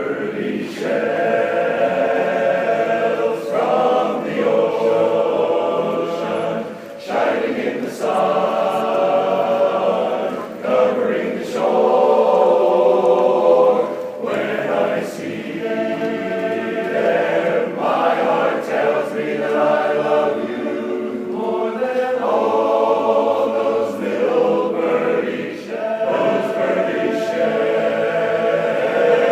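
Barbershop-style men's chorus singing a cappella in close harmony, in phrases with short breaks between them.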